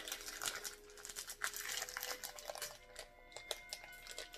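Plastic wrapper of a small Oreo cookie packet crinkling and crackling as it is handled and opened, over soft background music.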